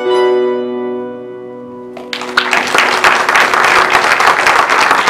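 Banduras ringing out on a held final chord that fades, then audience applause breaks out about two seconds in and grows louder.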